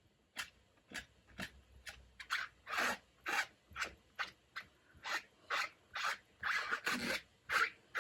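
Clear stamps being scrubbed clean on a stamp-cleaning chamois pad, a quick series of short rubbing strokes, about two a second.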